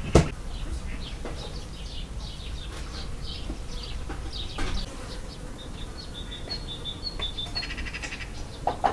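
Garden ambience of small birds chirping with short high calls, including a run of quick piping notes and a brief buzzy trill near the end. A sharp knock sounds right at the start.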